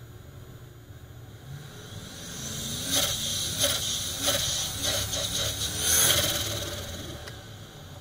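Turbocharged Rover V8 of a Land Rover Discovery 1 pulling under load. The turbo spools up with a rising whistle and hiss, then flutters in a run of sharp chuffs. The engine note climbs, is loudest about six seconds in, then drops back to a steady low running.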